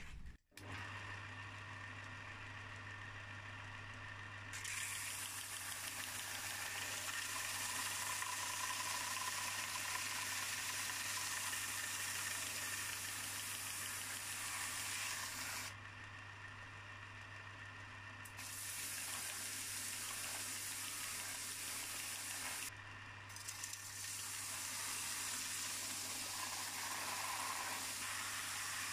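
Stationary belt sander running with a steady motor hum while a flat iron bar is pressed against its coarse abrasive belt to grind off mill scale. The grinding is a loud hiss in three long passes, with two short breaks where the bar is lifted off.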